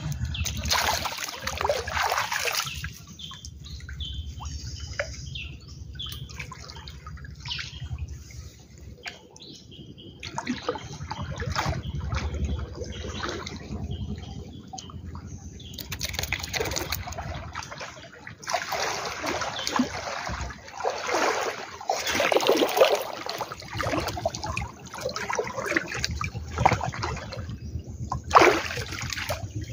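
Floodwater sloshing and splashing around a person wading waist-deep through it, in irregular surges.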